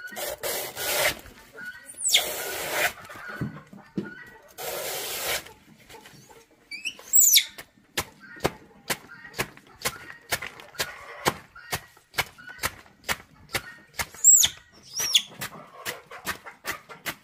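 Baby monkey giving a few short, high squeals, about seven seconds in and again twice near the end. They come over a run of sharp clicks, two or three a second. Before that come three short bursts of hissy noise.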